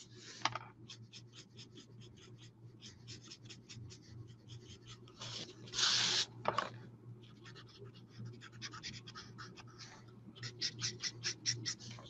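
Felt tip of a Stampin' Blends alcohol marker scratching across cardstock in quick short strokes, several a second, as the sky around a stamped image is coloured. About halfway through, a louder rasp as the card is slid and turned on the mat, then the quick strokes start again.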